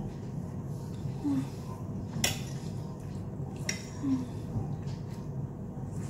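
A metal fork clinking against a plate while cutting lasagna: two sharp clinks, about a second and a half apart. Between them come two short low hums from someone chewing with her mouth closed.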